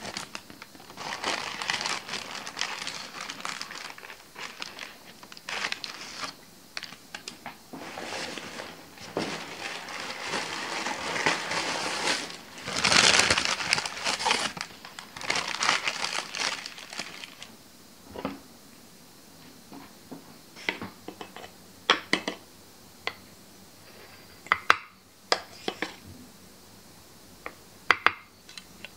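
A paper bag crinkling and rustling as it is opened and handled, for about the first seventeen seconds. Then scattered sharp clicks and knocks, from an espresso portafilter and tamper as ground coffee is tamped.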